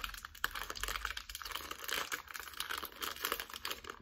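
A plastic Skittles candy bag crinkling and crackling as it is pulled and strained at to tear it open. The crackles run densely and stop at the very end.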